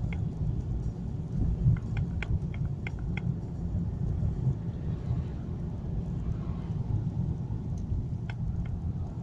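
Car driving, heard from inside the cabin: a steady low rumble of road and engine noise, with a few short clicks about two seconds in and another near the end.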